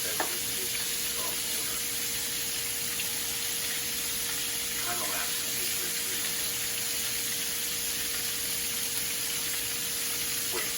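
Sauce steadily sizzling in a pan on the stove, with a steady humming tone underneath.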